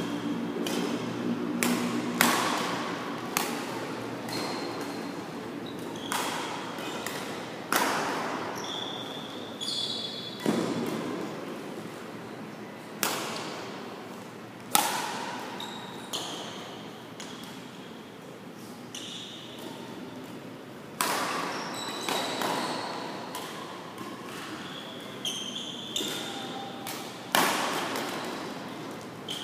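Badminton rally: sharp racket-on-shuttlecock hits, irregularly spaced about every one to two seconds with a lull of a few seconds in the middle, each ringing on in the hall's echo. Short high squeaks of sneakers on the court floor come between the hits.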